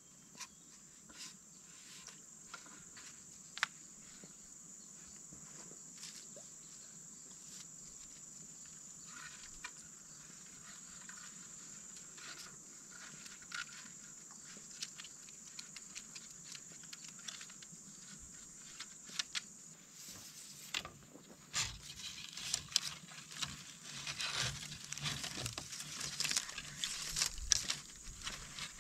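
Bamboo poles being handled, with scattered light knocks and taps, turning about two-thirds of the way in into a dense run of rustling and crackling as a tie is wrapped and pulled tight around a bamboo joint. A steady high insect buzz runs underneath.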